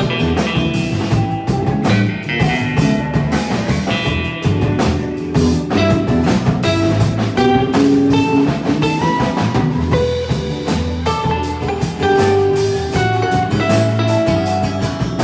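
Live blues band playing an instrumental passage with no singing: guitars picking melodic lines over a steady bass and drum-kit groove.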